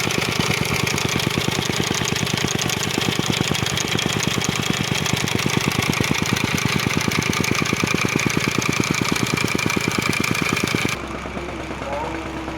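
Excavator working on hard asphalt: a loud, steady, rapid clatter of about ten even beats a second. It cuts off abruptly about eleven seconds in, leaving a quieter hum.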